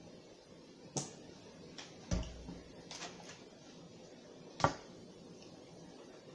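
Tableware handling: a plastic ranch dressing bottle and a fork clicking and knocking against a styrofoam takeout container. A sharp click about a second in, a duller knock at about two seconds, lighter taps near three seconds and the loudest click at about four and a half seconds.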